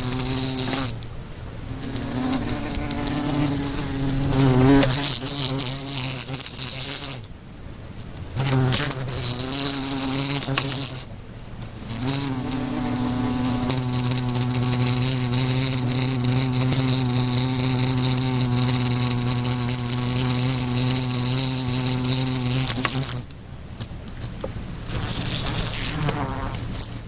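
Fly buzzing in flight: a pitched drone that wavers in pitch and breaks off briefly a few times, with a long steady stretch in the middle.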